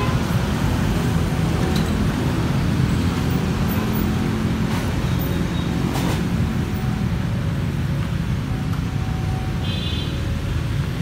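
Road traffic noise: a steady low rumble of passing vehicles, with a brief high-pitched tone about ten seconds in.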